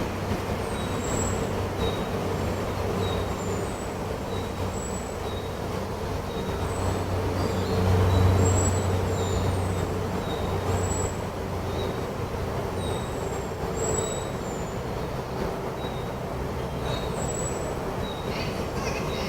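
Forest birds chirping in short, high calls repeated about once a second, over a steady rush of wind with a low rumble that swells about eight seconds in.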